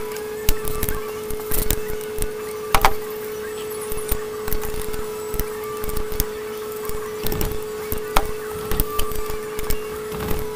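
Hand wrench clicking and clinking against bolts on a transmission case as they are turned a little at a time without a ratchet: irregular metallic taps and knocks, over a steady hum.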